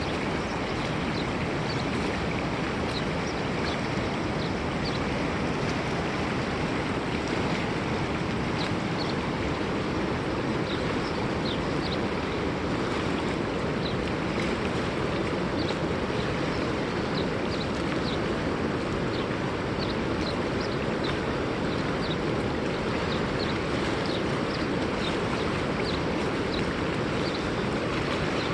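River water rushing steadily in a continuous, even noise, with many faint, short high chirps scattered over it.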